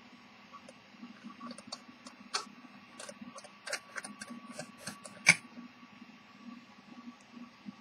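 Irregular light clicks and taps of metal against wood as a brass-cased deck watch is handled in its wooden box. One sharper, louder click about five seconds in as the watch's glass bezel comes off.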